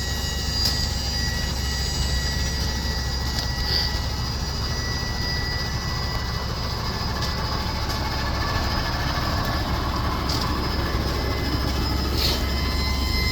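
Steady mechanical whine over a low, even rumble, with a few faint clicks.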